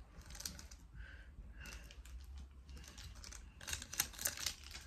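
Foil wrapper of a Pokémon card booster pack crinkling and tearing as it is pulled open by hand, in short scratchy bursts that come thickest near the end.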